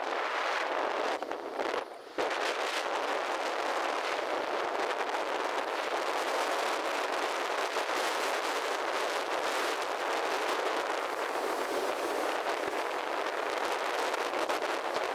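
Steady rushing noise of surf and strong wind, with a brief drop about two seconds in.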